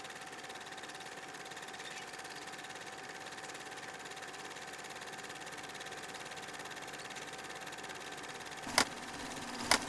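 A small machine running steadily with a fast, even rattle and a steady hum, then two sharp clicks near the end.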